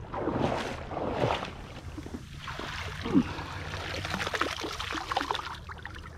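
Water sloshing and splashing in uneven bursts, with a brief squeak about three seconds in.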